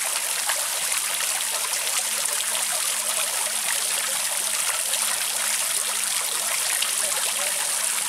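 Tiered stone fountain running: water spilling over the rim of its bowl and splashing steadily into the basin below.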